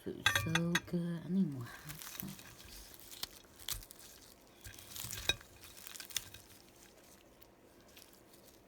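A short wordless vocal hum in the first second and a half, then scattered crinkling and sharp clicks, the loudest click about five seconds in.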